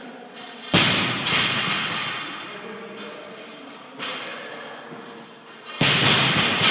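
Loaded barbells with rubber bumper plates dropped onto wooden lifting platforms after cleans: heavy thuds, each ringing on for a second or two. Two land close together about a second in, another near four seconds and another near six.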